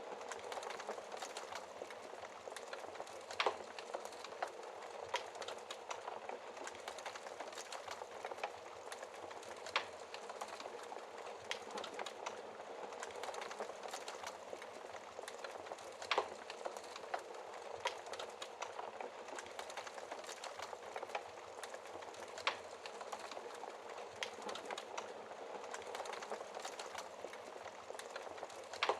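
Wood fire in a fireplace crackling steadily, with four louder sharp pops spaced about six seconds apart.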